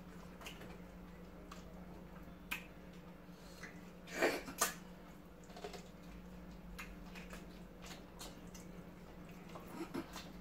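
Wet mouth sounds of eating with the hands: chewing, lip smacks and finger-sucking on fufu with okra soup and chicken, scattered throughout, with a louder pair of smacks about four seconds in. A faint steady hum runs underneath.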